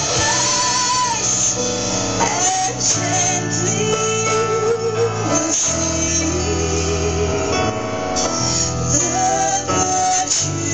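Music: a woman singing long notes with vibrato over a band, with a steady bass line underneath.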